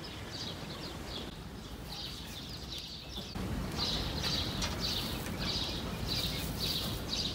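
Small bird chirping over and over in short, high chirps, faint at first and then louder and regular at about two to three chirps a second, over steady low background noise.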